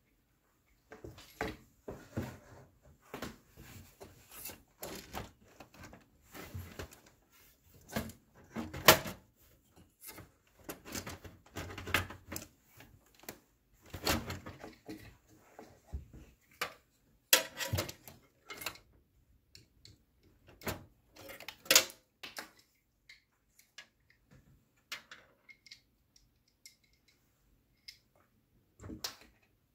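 Irregular clicks, knocks and rattles of hardware being handled inside a metal desktop PC case, around a liquid-cooler radiator; the loudest knock comes about nine seconds in, with quieter gaps later on.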